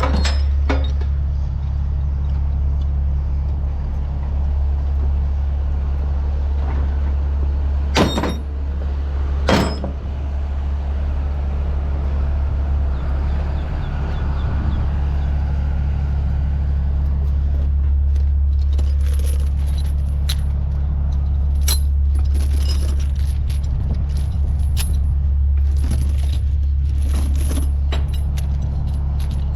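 Heavy diesel engine idling steadily, with two sharp metal clanks about 8 and 9.5 seconds in and repeated metallic clinking and jangling from about 18 seconds on.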